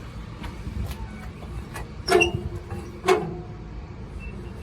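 Two sharp clanks on a derelict locomotive's metalwork, about a second apart, each with a short ringing tail, over a low steady rumble.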